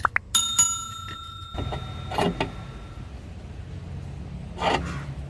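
A sharp metallic clang about a third of a second in, with a bell-like ring that dies away over about two and a half seconds: a steel wheel-change tool striking metal. Two softer knocks or scrapes follow, over a steady low hum.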